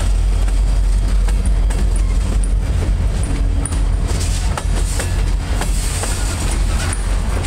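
Freight cars rolling past: a loud, steady low rumble of steel wheels on rail, with irregular sharp clacks as the wheels cross rail joints.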